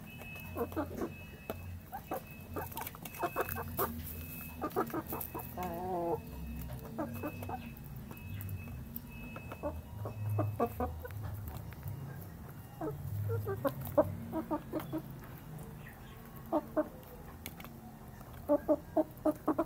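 Chickens clucking in short clusters while they feed, with a brief warbling trill about six seconds in and a quick run of clucks near the end. Occasional sharp clicks of beaks pecking the metal feed bowl.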